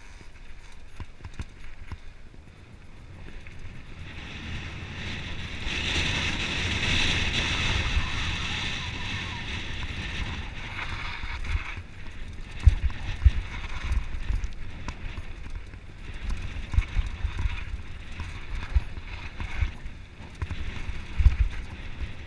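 Mountain bike descending a dirt trail, heard from a camera on the bike or rider: steady wind noise on the microphone and tyres rolling over dirt and loose stones. Sharp knocks as the bike hits bumps come thickly from about halfway through and again near the end.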